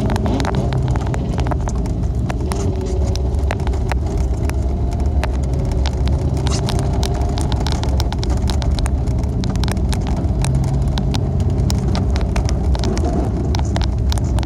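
A car driving on a snow-packed road, heard from inside the cabin: a steady low rumble from the engine and tyres, with many sharp ticks and clicks throughout.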